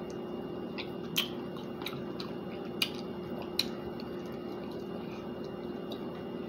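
Close-up chewing and lip smacking on chicken wings, with a few sharp wet clicks from the mouth over a faint steady hum.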